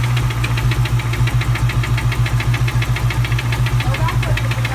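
1997 Mustang SVT Cobra's 4.6-litre DOHC V8 idling with a steady rapid ticking knock, about ten a second. The owner suspects rod knock, a head tick or a spun bearing.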